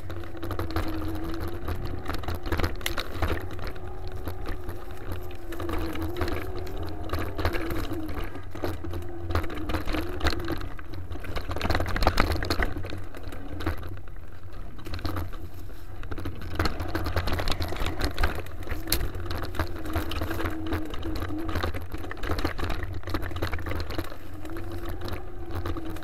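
Mountain bike riding down a rough dirt singletrack: constant rattling and clatter of the bike over the trail, with low wind rumble on the microphone. A wavering low hum comes and goes in stretches, and a sharper jolt stands out about twelve seconds in.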